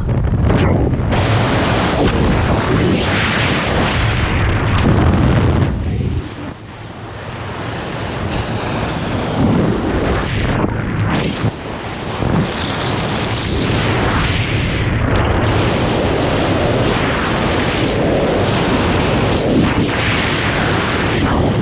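Wind buffeting the camera's microphone during flight under an open parachute canopy: loud and gusty, easing off about six seconds in and then building back up.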